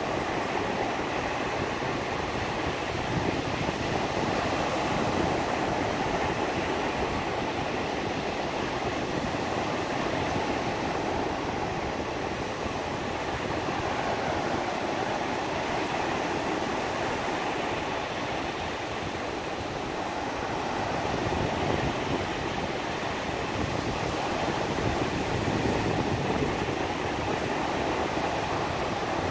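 Black Sea surf breaking and washing up a sandy beach: a steady rush of waves that swells and eases gently every few seconds.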